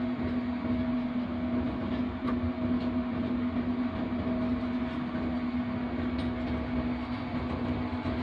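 GEU-40 diesel locomotive heard from inside its cab while running: a steady engine drone with a constant hum over a rough, even rumble from the wheels and track.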